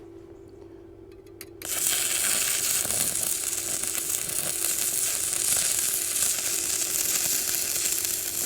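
Stick (MMA) arc welder striking an arc about a second and a half in, then running a weld on thick steel at 120 amps: a steady crackling sizzle.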